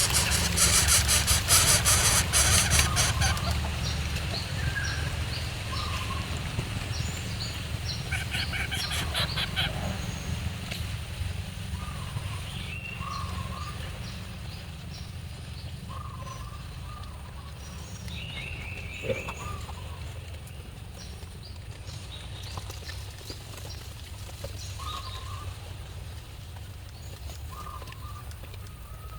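Birds calling: short calls repeated every second or two, over a steady low rumble. A loud crackling rustle fills the first few seconds.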